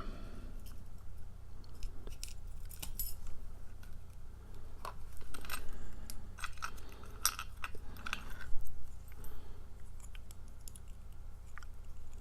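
Small metal clicks and clinks, scattered and irregular, from a steel padlock, its keys and small lock tools being handled, with a few short metallic rings.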